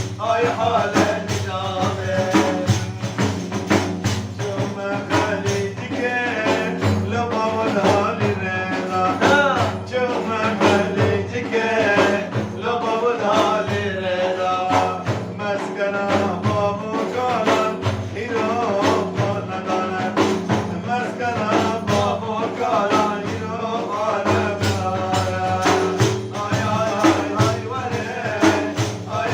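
A man singing a Kurdish madih, a religious praise song, in a wavering, ornamented melody over a steady beat of frame drums with jingles.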